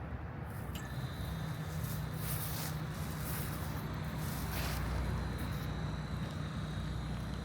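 Sound of a tram in service heard from the cab: a steady low electrical hum with a thin high steady tone joining about a second in, and a few brief hissing swells in the middle.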